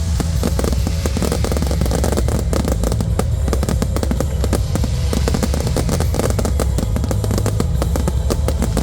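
Aerial fireworks display going off in a dense, continuous barrage of rapid bangs and crackling, over a steady low rumble.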